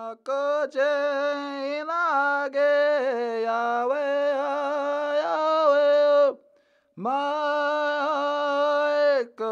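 A man singing a chant unaccompanied, with long held notes. It comes in two phrases, with a short break about six seconds in.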